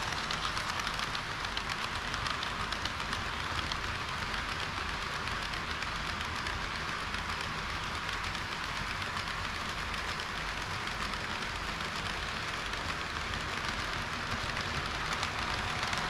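HO-scale model trains rolling past on sectional track at close range: a steady rattling hiss of metal wheels on rail, with fine, rapid clicking throughout.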